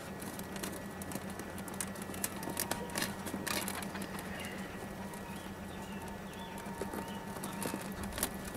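Faint clicks and rustling of stripped copper wires being gathered and a plastic wire nut being twisted onto them by hand, over a steady low hum.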